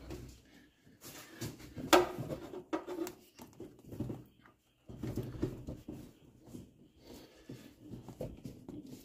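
Rubber heater hose being worked and pushed onto a heater core pipe by hand: irregular rubbing and clicking handling noises, with a sharp knock about two seconds in.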